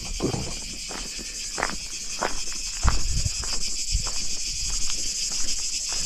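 A steady, high-pitched chorus of insects, with a person's footsteps walking at about one step every half second or so.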